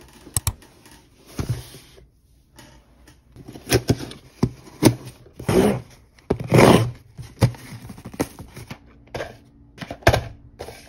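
An irregular series of sharp clicks and taps mixed with short scrapes, as of objects being handled and set down. The loudest, longer scrapes fall in the middle.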